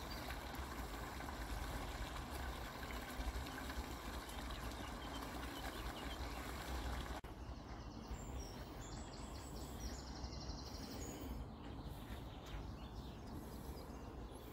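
Shallow brook running, an even rushing hiss with a low rumble under it; it cuts off sharply about halfway through, leaving quieter outdoor air in which a bird sings a short high trill.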